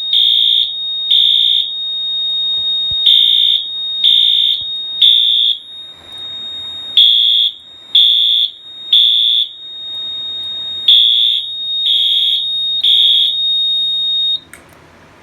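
Fire alarm horns sounding the temporal-3 evacuation pattern, groups of three high-pitched blasts with a pause between each group, over a steady high-pitched tone. The system has gone back into alarm after canned smoke was sprayed into an Edwards smoke detector. Everything cuts off about fourteen seconds in.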